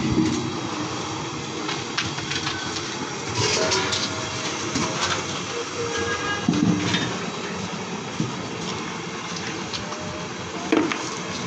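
Large aluminium cooking pots and a metal tray knocking and clinking now and then as they are handled and filled, over a steady rushing noise.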